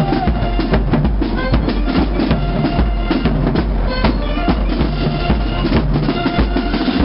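Marching band playing in the street: a drumline of bass and snare drums beats a dense, driving rhythm, with short brass notes over it.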